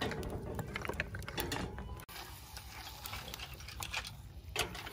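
Snail shells clicking against the metal bars of a charcoal grill grate as they are set down one after another, in irregular light clicks.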